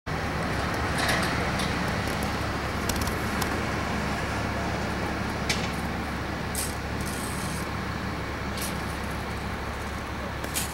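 Steady city street background noise with road traffic and a low hum, broken by a few short, sharp clicks.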